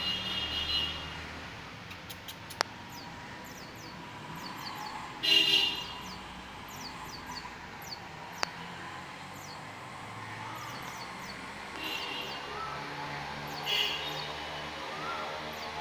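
Small birds chirping over a steady low background hum. There is a loud, brief horn-like tone about five seconds in, weaker ones near the start and near the end, and two sharp clicks.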